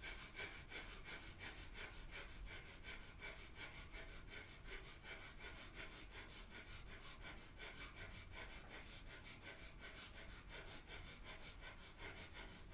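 Breath of fire: rapid, even, forceful puffs of breath through the nose, faint and rhythmic.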